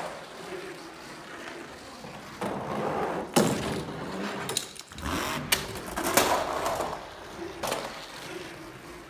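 Toy monster trucks rolling down a plastic track, with a rattling roll and several sharp plastic clacks as they hit joints and bumps.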